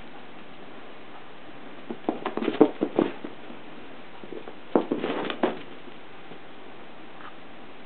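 Metal binder clip clattering and rattling on a hard floor as a pet plays with it: two bursts of quick clicks, one about two seconds in and one about five seconds in.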